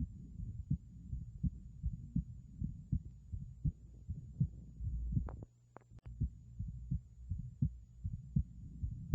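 Heart sounds through a stethoscope from a heart with a bicuspid aortic valve: a steady rhythm of low thumps, presented as abnormal. About halfway there is a brief break with a few sharp clicks before the beat resumes.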